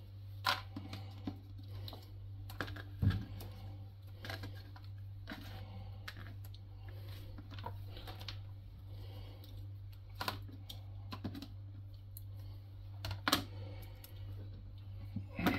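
Scattered clicks, taps and knocks of kitchen things being handled on a tiled worktop: a peeler, the peeled squash and a plastic cutting board picked up and set down, with sharper knocks about three seconds in and again near thirteen seconds. A steady low hum runs underneath.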